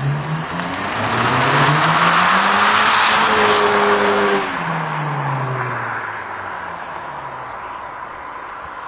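Modified Volkswagen GTI's 2.0-litre turbocharged four-cylinder accelerating hard past, its pitch climbing for about four seconds, then dropping sharply and falling away as the car drives off and the sound fades.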